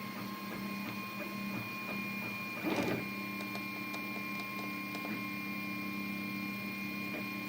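A8 3D printer running a print, its motors whining in steady tones that shift in pitch now and then as the head moves. There is a short rustling burst about three seconds in.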